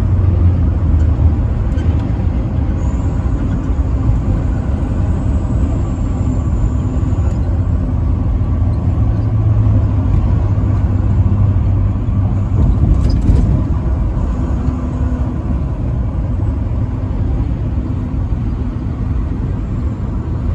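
Steady low rumble of road and engine noise from a vehicle driving along the interstate highway.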